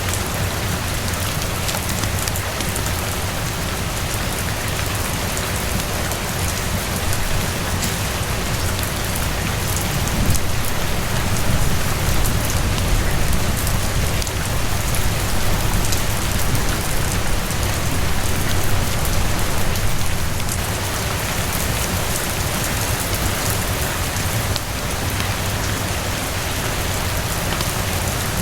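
Steady heavy rain falling on a terrace and roof, a dense hiss dotted with fine drop ticks, with a deep rumbling undertone. It swells slightly louder from about ten to twenty seconds in.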